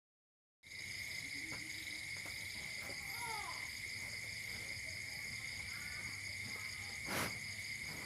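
Steady night chorus of crickets trilling on one high, unbroken pitch, with a few faint short calls. A single sharp tap about seven seconds in.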